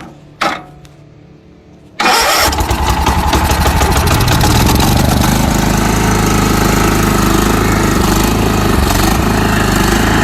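Two sharp clicks, then about two seconds in a lawn mower engine catches abruptly and keeps running loudly and steadily.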